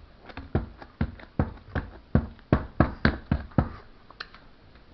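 Fingers tapping and poking slime on a plate: a quick run of about a dozen sharp sticky pops, roughly three to four a second, then two fainter ones near the end.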